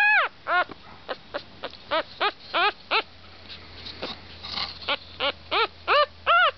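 Havanese puppy whimpering and crying over and over, short high cries that each rise and then fall in pitch, about three a second, with a brief lull in the middle.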